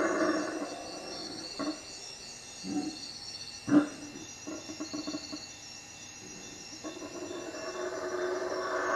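Howler monkeys calling at night: their loud chorus dies away at the start, a few short separate calls come over the next few seconds, and the chorus swells up again near the end. Insects chirp steadily throughout.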